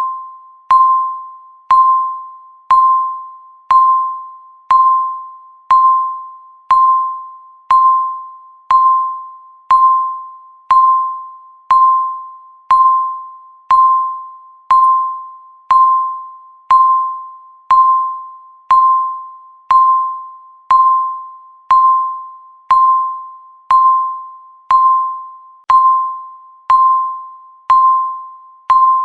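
Countdown timer beep sounding once every second: a single mid-pitched electronic tone that starts sharply and fades away before the next, marking off each second of the count.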